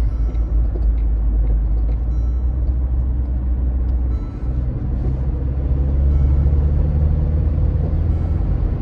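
Car interior noise while driving: a steady low rumble of engine and tyres on the road. It dips briefly about four seconds in, then comes back heavier.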